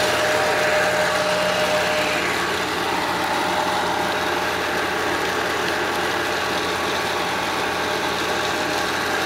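Fiat 640 tractor's diesel engine running steadily while it drives a tubewell pump, with water gushing from the discharge pipe and splashing into the channel.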